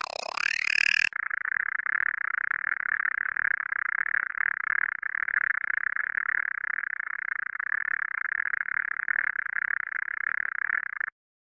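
Designed alien voice sound effect: a short screech that swoops down in pitch, then about a second in a steady, rapidly fluttering rattle that holds for about ten seconds and cuts off suddenly.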